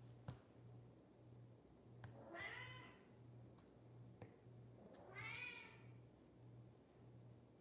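Domestic cat meowing twice: two drawn-out meows about three seconds apart, each bending up and then down in pitch. Under them are a faint low pulsing hum and a few small clicks.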